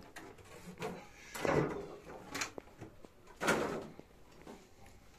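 Several short rustling and scraping noises, about four over the first four seconds, as coconut coir substrate is handled and spread in a glass aquarium.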